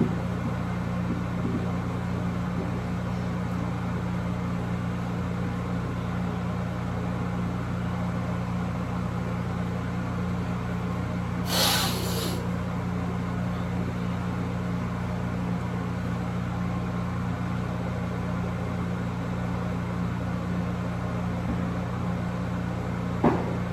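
Steady low mechanical hum, like a motor running, with a short hiss about halfway through and a light knock near the end.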